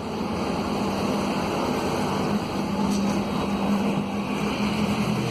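A machine running steadily, a low hum under a noisy rush.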